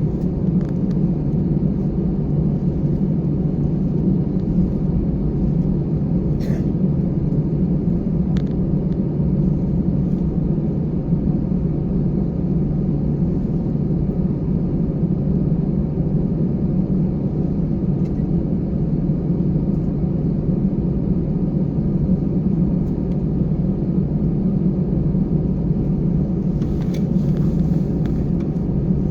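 Airliner's engines heard from inside the cabin as a steady low rumble, with a couple of faint clicks and a brief hiss near the end.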